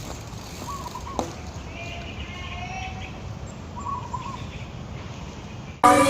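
Faint bird chirps, a few short calls spread over several seconds, above a low steady background rumble. Music cuts in abruptly near the end.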